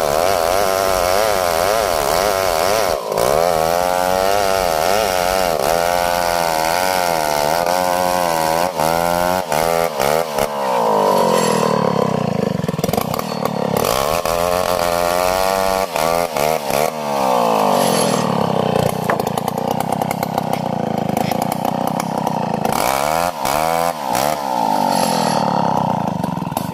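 STIHL 070 two-stroke chainsaw running at high revs while sawing a log lengthwise into beams. Its pitch repeatedly rises and sags as the bar loads in the cut and frees up, with brief dips in speed several times.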